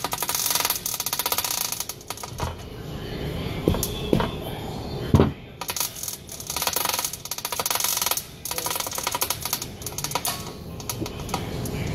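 Manual chain hoist being worked by its hand chain: bursts of rapid ratcheting clicks with each pull, and a few single metal clanks about four to five seconds in.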